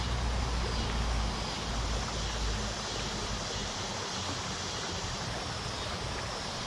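Steady background noise at an urban creek: traffic and running water blending into an even hiss. A low rumble fades away about two and a half seconds in.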